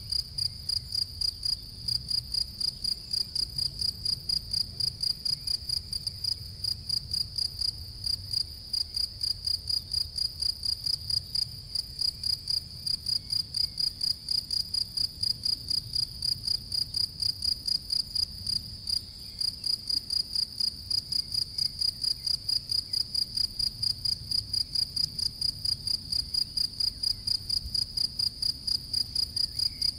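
Male European field cricket (Gryllus campestris) singing: a loud, high chirp repeated steadily about three times a second, with a couple of brief breaks.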